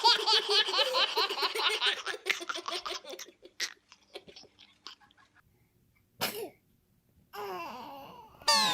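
Hearty laughter in quick bursts, fading out after a few seconds, then a single short sneeze about six seconds in.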